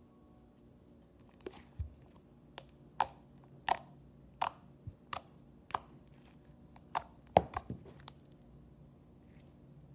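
Thick pale green glitter slime being squeezed and poked by fingers, giving about a dozen sharp pops and clicks, irregular and roughly one or two a second. The pops stop shortly before the end.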